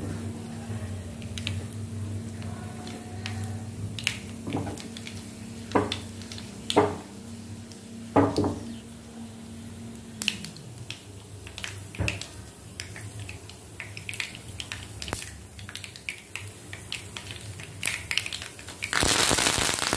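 Tempering spices and dry red chillies frying quietly in oil in a non-stick pan, with scattered sharp pops and clicks, three of them loud, and a low steady hum that stops about halfway. Near the end a sudden loud sizzle and spatter breaks out as fresh curry leaves hit the hot oil.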